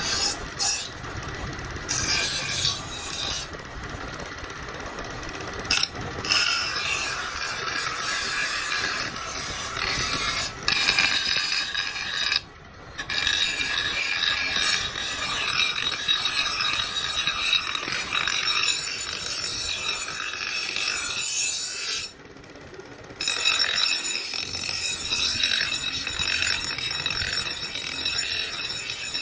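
Steel blade scraping and rubbing against an abrasive in repeated strokes, in a few separate runs with short breaks between them, typical of a cleaver being sharpened or finished.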